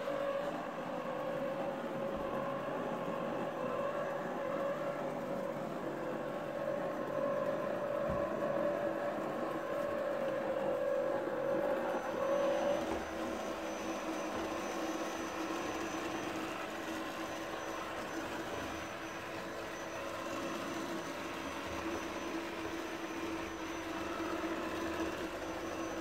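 Jisiwei robot vacuum cleaner running, a steady motor whir with the brush and wheel noise. About halfway through, its steady tone drops to a lower pitch and stays there.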